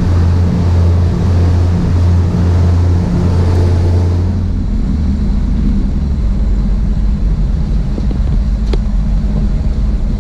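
Cabin cruiser's engines running under way, with the wake water rushing behind the stern. About four and a half seconds in, this changes to a duller, steadier low engine drone with less water hiss.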